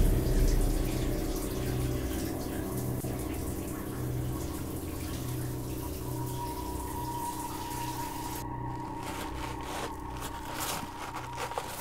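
Shower water running, a steady hiss of spray, with a low pulsing hum beneath it. The hiss thins and changes about eight seconds in.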